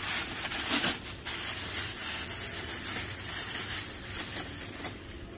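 Thin plastic bag rustling and crinkling as it is pulled open and unwrapped by gloved hands, with many sharp crackles, dying down near the end.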